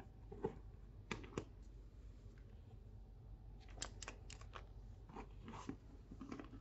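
Handling sounds of a handbag: a scattering of short clicks and rustles, with a quick cluster of them about four seconds in as the satchel is set down and picked up again.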